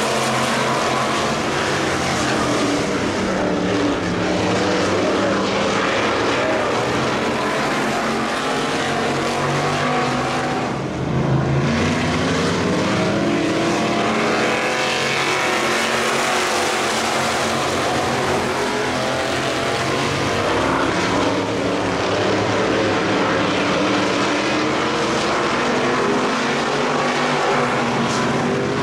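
Several Factory Stock dirt-track race cars running at racing speed, their engines rising and falling in pitch as they go through the turns and down the straights. About eleven seconds in, the sound dips briefly and then swells louder as a car passes close by.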